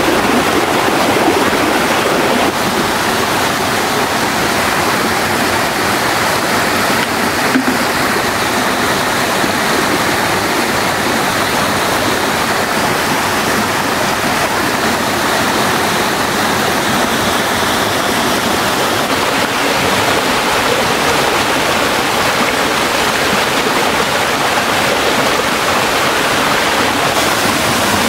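Waterfall and mountain stream water rushing over rocks: a steady, loud rush of water.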